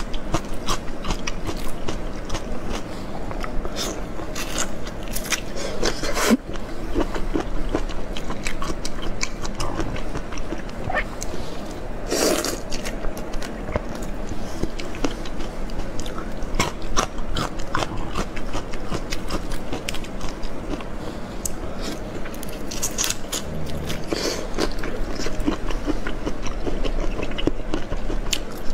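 Close-miked eating of raw soy-sauce-marinated shrimp: shells pulled and peeled by hand, then wet biting and chewing, a dense, irregular stream of small clicks and crunches.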